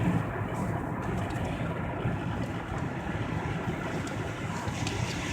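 Car driving on a snowy street: steady engine and tyre noise heard from inside the cabin.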